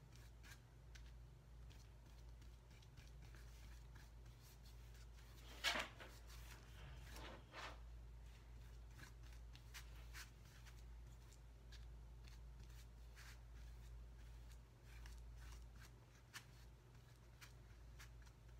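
Near silence over a low steady hum, with faint scratchy strokes of a flat paintbrush spreading white paint over a wooden cutout. A louder brief sound stands out about six seconds in.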